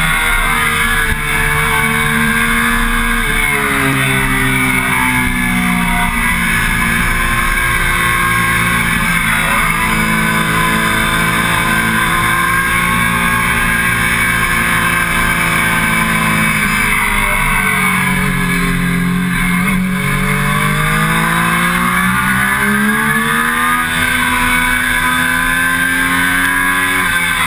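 The inline three-cylinder engine of a 2009 Triumph Daytona 675 running hard at track speed, mixed with the rush of wind. Its pitch falls and climbs again twice, a few seconds in and about two-thirds of the way through.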